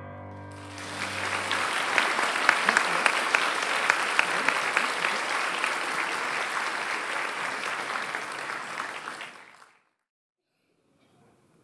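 Theatre audience applauding, rising as the last held notes of the piano music die away. The clapping stays steady, then cuts off suddenly near the end, leaving only a few faint knocks.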